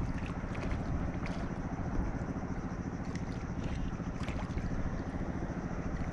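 Wind buffeting the microphone over a steady low hum, with faint light splashes as a small hooked fish skips across the water surface.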